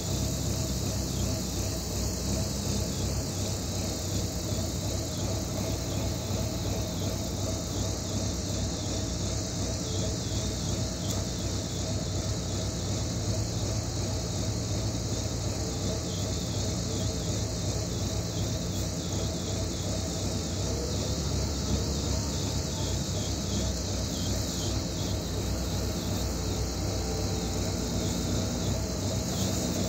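Tractor diesel engines running steadily, including a Case IH front-loader tractor working its bucket in slurry, with a constant engine drone and no breaks.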